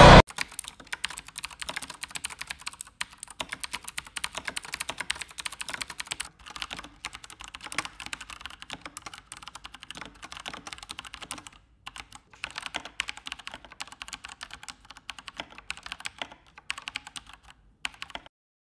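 Fast typing on a Razer BlackWidow Elite mechanical gaming keyboard: dense runs of key clicks broken by several brief pauses. The later runs are on Razer Orange (tactile, silent) and then Razer Yellow (linear, silent) switches.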